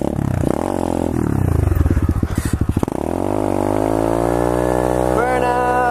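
SSR 125cc pit bike's single-cylinder four-stroke engine revving up and down in low gear, then dropping to a lower, steady note about halfway through.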